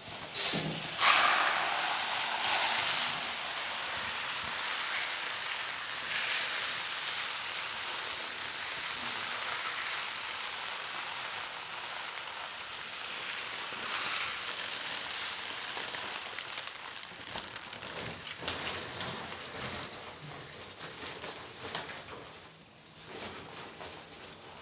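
Loose rice grains pouring out of a woven sack onto a heap, a steady rain-like hiss that starts about a second in and slowly tapers off near the end.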